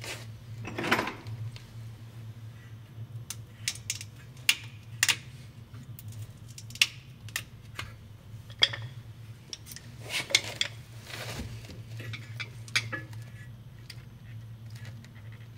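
Metal tools and brake parts clinking and clattering during a rear brake pad job: a short scrape about a second in, then irregular sharp clinks, over a steady low hum.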